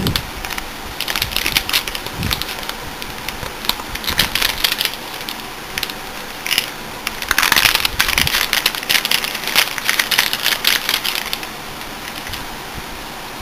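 Crinkling and crackling of the hard drive's vacuum-sealed plastic packaging being handled, in irregular bursts that stop about eleven seconds in.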